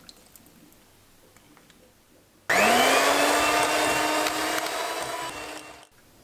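Electric hand mixer switched on about two and a half seconds in, its motor whine rising in pitch as it spins up, beating egg yolks, sugar and oil in a glass bowl for about three seconds, then switched off abruptly near the end.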